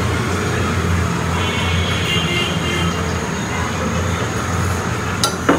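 Steady low rumble of a gas stove burner heating an iron tawa while a roti cooks, with a sharp clink of the metal spatula against the pan near the end.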